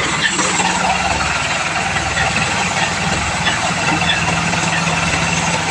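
Combine harvester running at a steady engine note, with a dense even mechanical noise over it.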